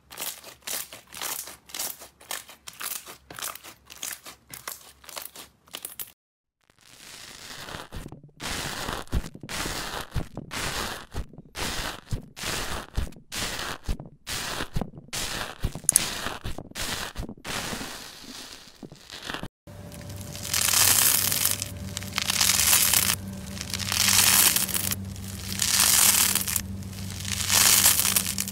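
Slime being played with by hand, in three stretches. First, yellow slime is squeezed with quick, dense squishing clicks. From about 7 s, purple foam slime (floam) is poked with a tool, giving sharp crackling snaps. From about 20 s, a crunchy, sponge-like white slime is stretched and pressed, crackling loudly in swells about every second and a half.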